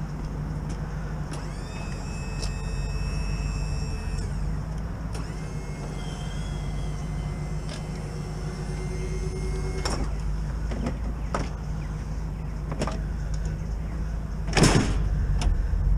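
Ricon wheelchair lift on a van folding its platform up. Its motor whines in two steady runs, about three seconds and then about five, over a constant low hum. A few clicks and clanks follow, then a heavier thud near the end.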